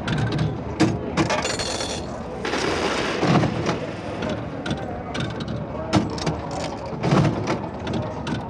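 Vintage slot machine paying out: a continuous clatter of irregular knocks and thuds, with a brief ringing tone about a second in.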